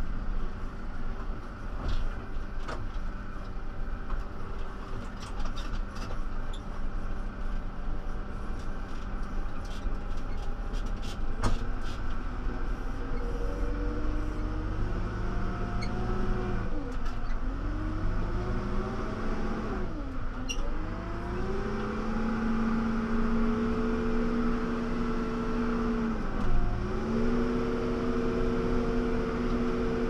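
2006 John Deere 310SG backhoe's four-cylinder diesel engine running under way, heard from inside the cab. From about halfway the engine revs rise; the pitch drops sharply and climbs back three times, then holds steady at higher revs near the end. Light clicks and rattles come and go in the first half.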